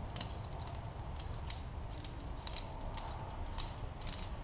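Faint, irregular small clicks and taps of a pistol-barrel test fixture's metal insert plate being handled, over a steady low hum.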